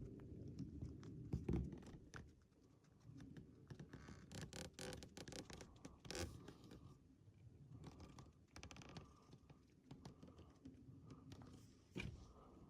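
Faint scratching and scraping with scattered clicks, and a soft thump about a second and a half in.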